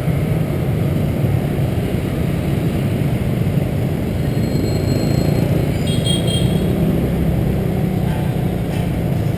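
Steady low rumble of a motor scooter ride through dense street traffic, heard from the moving scooter. A brief high-pitched tone sounds about six seconds in.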